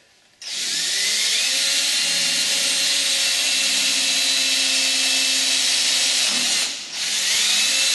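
Cordless drill with a long bit drilling down into an aluminium tube: the motor whines up to speed about half a second in and runs steadily, stops briefly about seven seconds in, then spins up again.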